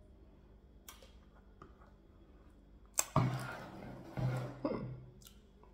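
A spoon clinks lightly, then about three seconds in a knock is followed by around two seconds of scraping clatter as the soup pot is set down and moved on the table.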